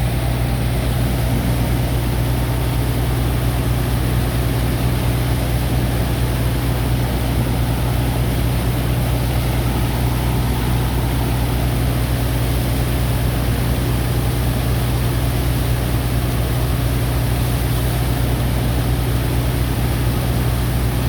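Heavy diesel engine of a sand dredger running steadily, a deep constant hum with a rushing noise over it.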